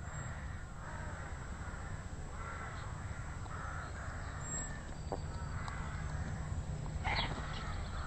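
Rooks cawing in short harsh calls, a louder call just after seven seconds in, over a steady low background hum.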